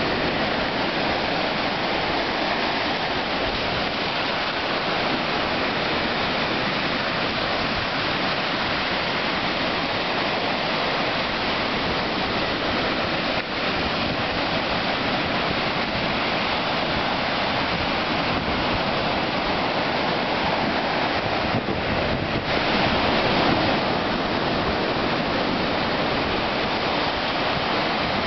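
Ocean surf breaking and washing up a sandy beach in a steady rush, swelling a little louder for a moment about two-thirds of the way through.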